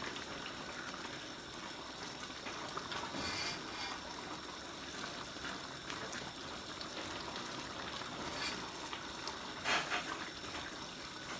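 Stew bubbling in a large aluminium pot on a gas burner while a plastic spatula stirs through it, with a brief louder clatter about ten seconds in.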